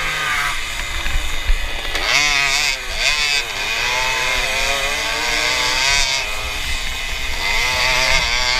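Tomos moped's small two-stroke engine revving hard at race pace, its pitch dropping and climbing sharply as the throttle is closed and opened through the turns, then holding steadier before rising again near the end.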